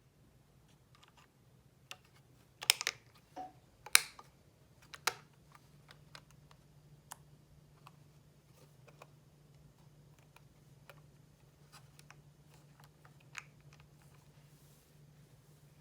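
Light clicks and taps of small parts being handled, with a cluster of sharper knocks about three to five seconds in, then only sparse soft clicks over a low steady hum.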